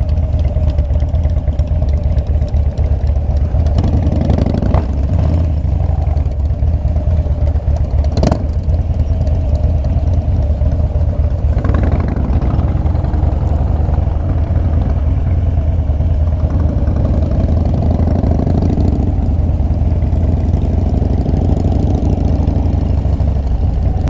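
Harley-Davidson V-twin motorcycle engine running at low revs, a steady low pulsing as the bike idles and rolls along slowly. A few short clicks come over it, about 5, 8 and 12 seconds in.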